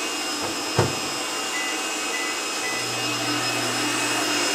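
Electric stand mixer running steadily at speed, whipping chantilly cream. A single knock sounds about a second in, and a low steady hum joins under the whirring in the second half.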